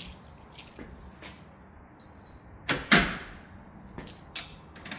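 A short electronic beep from the fob reader, then about half a second later two loud clunks as the push-bar's latch-pullback solenoid pulls the latch back. The solenoid retracts only on some swipes, which is suspected to be low supply voltage.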